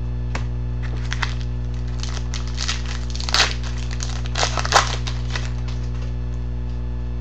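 Wrapper of a hockey card pack crinkling and tearing as it is opened, in short crackling bursts around the middle, over a steady electrical hum.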